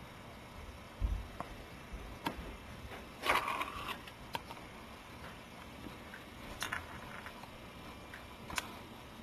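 Faint scattered knocks and clicks over a low hiss, with a brief rustle a little over three seconds in: handling noise from things being moved about near the microphone.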